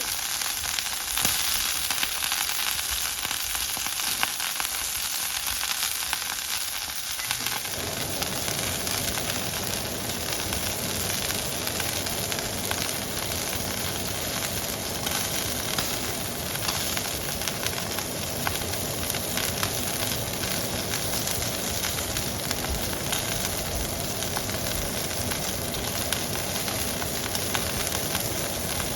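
Thick steak searing in a very hot pan over high heat: a steady, dense sizzle with fine crackles. About seven and a half seconds in, a low rumble joins it and holds.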